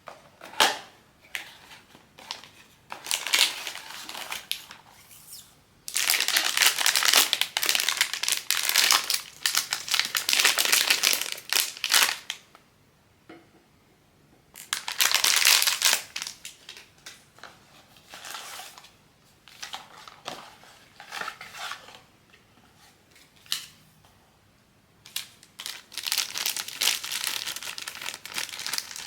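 Blind-box packaging crinkling and crumpling as it is handled and opened by hand, in several bursts of a few seconds each, with small clicks and taps between.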